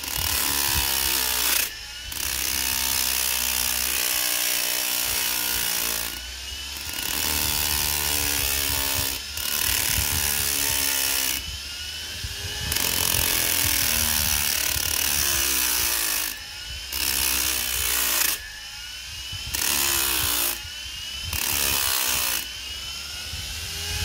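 Washing-machine motor spinning a red polishing wheel in a drill chuck, with rusty pliers pressed against the wheel again and again. Each pass gives a loud scrubbing hiss lasting a few seconds, and in the short gaps between passes the motor's hum and whine can be heard.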